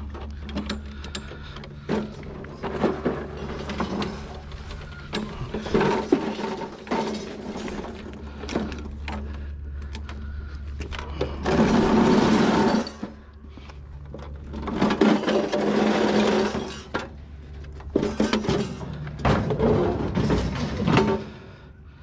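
A push lawnmower with its engine off is rolled over pavement and heaved into a trailer, rattling and knocking, with two longer, louder stretches of scraping and clatter past the middle as it goes in.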